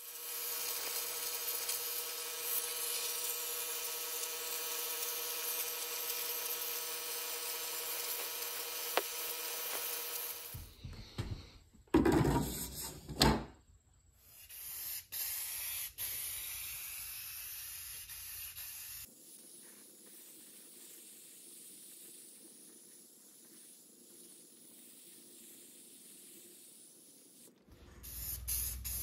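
CNC plasma cutter cutting sheet metal: a steady hiss with a whine, ending about ten seconds in. A few loud metal clanks follow, and near the end an aerosol spray-paint can hisses.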